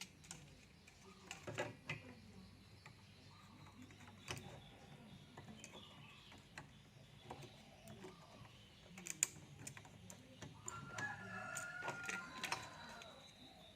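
Scattered clicks and taps of metal tools on an amplifier circuit board as a soldered selector switch is pried out, the sharpest click about nine seconds in. A rooster crows in the background for about two seconds near the end.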